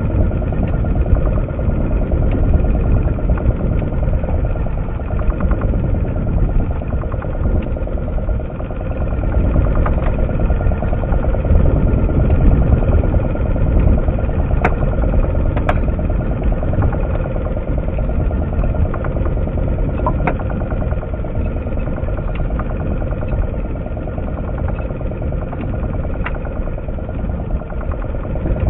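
Outboard motor running steadily on a small boat, with a few sharp ticks about halfway through.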